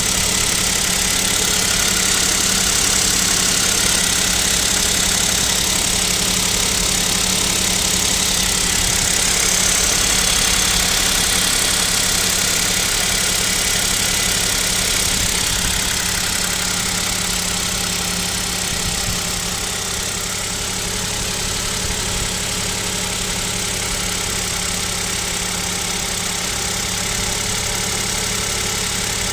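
KIA Picanto 2's 1.0 G3LA three-cylinder engine idling steadily on a cold start at about −7 °C, with a knock that the owner takes for piston knock, wondering whether it needs a rebuild.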